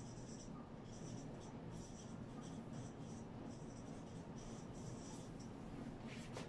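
Marker pen writing on a whiteboard: a run of short, faint strokes as the words are written out, stopping shortly before the end.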